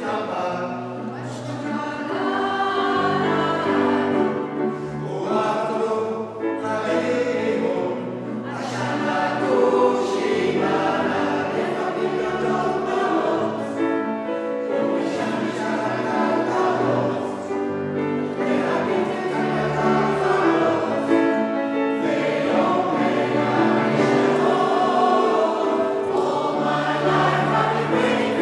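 Mixed choir of men and women singing sustained chords in harmony, with piano and violin accompaniment and brief breaks between phrases.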